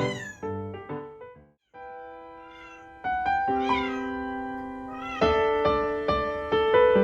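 Gentle piano background music, with a Ragdoll kitten meowing a few short times over it.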